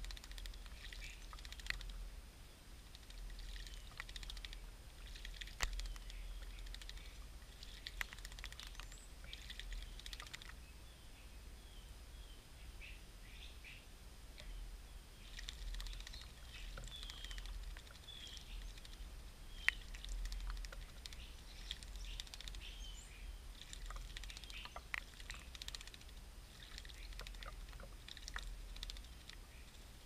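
Birds chirping and whistling in short, scattered calls, with a few sharp clicks and small splashes from a bird bathing in a stone bird bath. A low rumble runs underneath.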